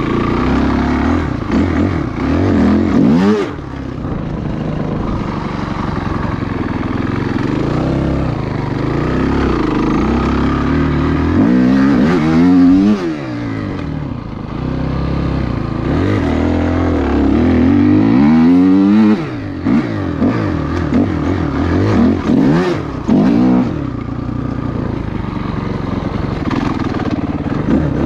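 Two-stroke dirt bike engine being ridden, revving up and falling away several times, with stretches of steadier running between the throttle bursts.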